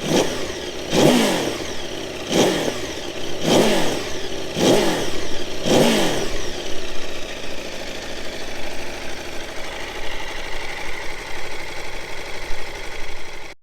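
2021 Aprilia Tuono V4 Factory 1100's V4 engine on its standard exhaust, revved in about six quick throttle blips roughly a second apart, each rising and falling in pitch. It then settles to a steady idle, which cuts off suddenly at the end.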